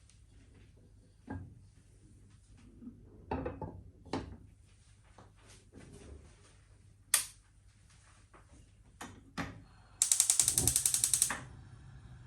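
Scattered knocks and taps of objects being handled, then a loud, rapid run of ratchet-like clicks, about nine a second, lasting under a second and a half near the end.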